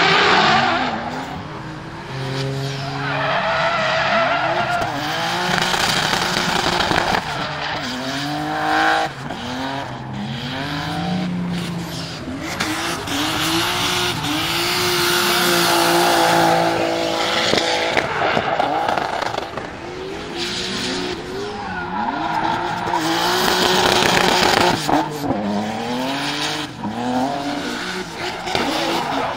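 Drift cars' engines revving hard, the pitch climbing and dropping again and again as they slide through corners, with the steady hiss and squeal of tyres spinning on the asphalt.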